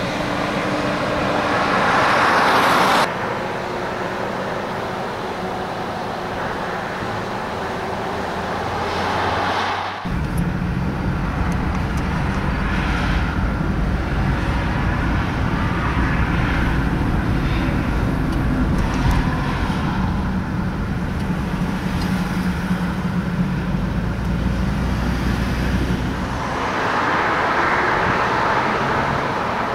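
Highway traffic: vehicles passing with swells of road and tyre noise. About a third of the way in, a steady low engine hum starts abruptly and continues beneath the traffic.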